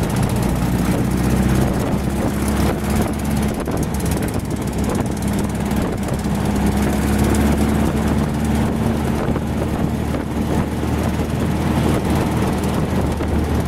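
Dune buggy engine running steadily at cruising speed, heard from the open cab with wind and road noise over it.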